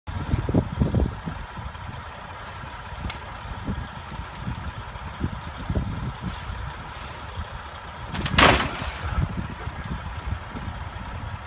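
Strong wind buffeting the microphone over the low rumble of semi trucks on a snowbound highway, with a loud rushing hiss lasting about a second just past the eight-second mark.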